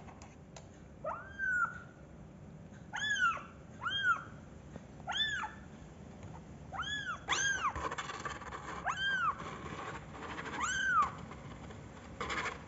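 Young kitten mewing over and over: a string of short, high-pitched mews, each rising and then falling in pitch, about one a second.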